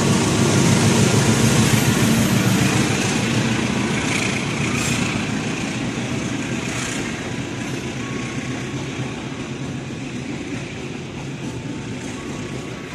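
CC 206 diesel-electric locomotive (GE C20EMP) running through at speed, its engine loud as it passes, then fading into the rumble of container flat wagons rolling by.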